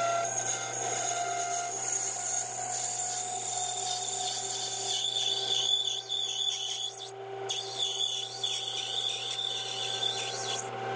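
Chinese 3-in-1 lathe-mill-drill running with a steady motor hum and gear whine while its lathe cuts down a Delrin bushing blank. The cutting tool makes a continuous rubbing hiss as it peels off long curling plastic chips.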